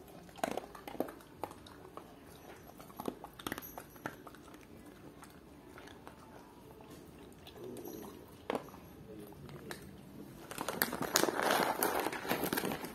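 A cat and dogs chewing small pet treats: scattered crisp crunches and clicks, then a louder, busier stretch of chewing and crunching near the end.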